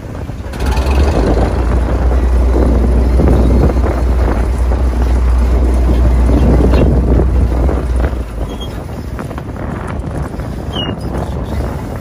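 Engine-driven net winch on a small bottom-trawl boat hauling in the net. A loud low drone comes in about half a second in and eases off around eight seconds.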